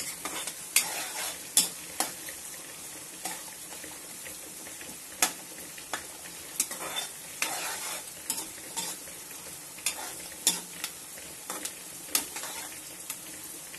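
Chopped onions and green chillies sizzling in hot oil in a metal kadai, fried until they colour, while a steel spoon stirs them, scraping and clinking against the pan at irregular moments.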